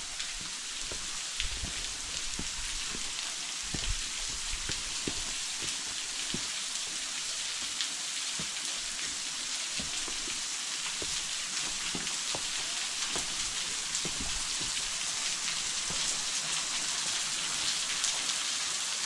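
Waterfall: a steady hiss of falling water splashing onto rock and pool, with scattered drips and splashes through it.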